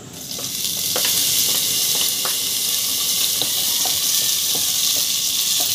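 Minced garlic sizzling in hot oil in a stainless steel pot, the sizzle setting in as the garlic drops in and building over the first second, then holding steady. A wooden spoon stirring it knocks lightly against the pot every half second or so.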